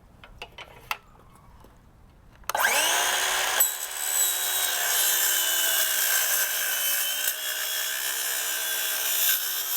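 Power saw spinning up about two and a half seconds in and cutting through a roll-screen track, running steadily with a high hiss until near the end. A few light clicks come before it starts.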